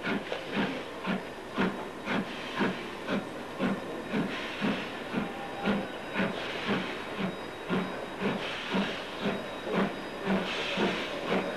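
Regular chuffing, about two beats a second, over a steady hiss.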